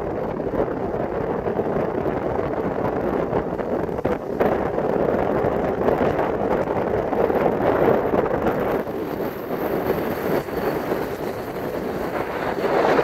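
Steady rush of wind buffeting the phone's microphone, mixed with the road noise of a moving car.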